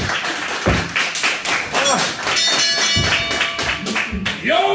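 Several dull thuds and taps on a wrestling ring's mat, with a short snatch of music about two and a half seconds in.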